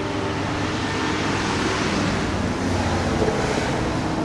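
A vehicle driving past, a steady rushing of engine and tyres that is strongest in the middle and eases near the end.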